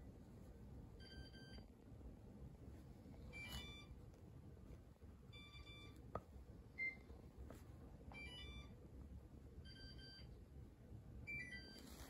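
Mitsubishi room air conditioner giving faint short electronic beeps, about seven in all, one every second and a half to two seconds, each acknowledging a button press on its remote. There are faint clicks between them.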